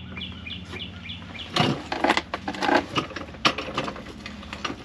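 Knocks and clatter of metal running-board brackets and bolts being handled, starting about a second and a half in and lasting about two seconds. A bird chirps repeatedly in the first second.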